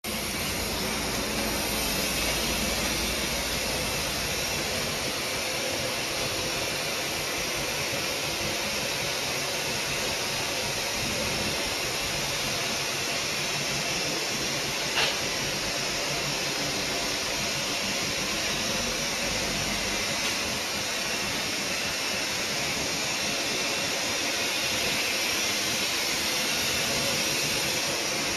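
Steady rushing, hissing machine noise from the running Busellato Supereasy CNC router. A single sharp click comes about halfway through.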